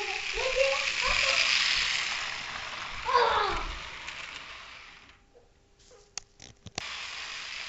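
H0-scale model V100 diesel locomotive and its coaches running past on sectional track: an even hissing rattle of motor and wheels that swells and then fades as the train goes by. A voice sounds briefly twice, and a few sharp clicks come in a near-quiet stretch about six seconds in.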